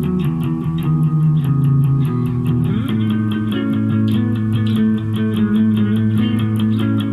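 Clean-toned electric guitar, an RJ Broadcaster Deluxe, playing held notes and chords, with a slide up in pitch just before three seconds in, over a backing track with a steady ticking beat.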